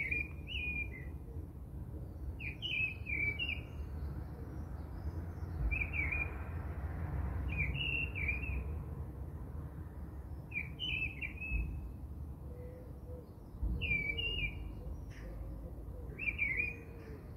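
A songbird repeating the same short chirping phrase about every two to three seconds, over a low steady rumble.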